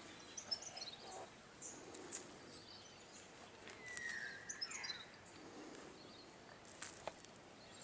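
Faint outdoor ambience with small birds chirping now and then: short high chirps near the start and middle, and a brief whistled glide about four seconds in. A few light ticks and scrapes come through as well.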